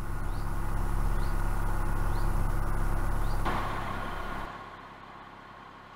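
Narrowboat's inboard diesel engine running steadily at slow cruising revs. About four and a half seconds in, the engine sound drops to a much quieter, duller hum.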